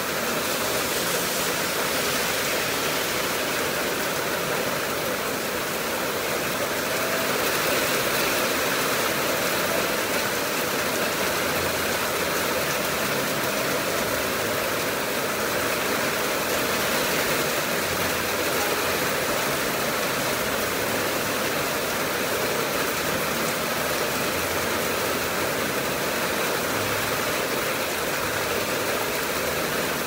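Heavy rain falling steadily, with runoff pouring off the edge of an awning.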